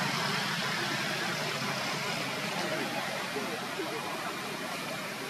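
Steady outdoor background noise: an even hiss with no distinct event, and a faint thin high tone that fades out about two seconds in.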